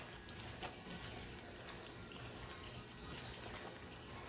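Hands kneading a wet ground-beef mixture with egg and milk in a plastic bowl: faint wet squishing with a few small clicks.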